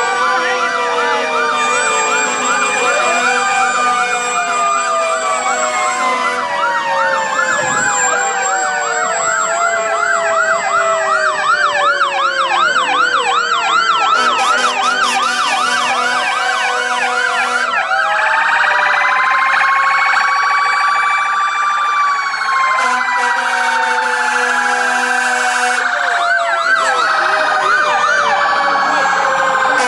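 Several fire-apparatus sirens sounding at once, their wails overlapping and sliding up and down in pitch. A fast warbling yelp comes in around the middle, and a broad siren sweep rises and falls slowly later on.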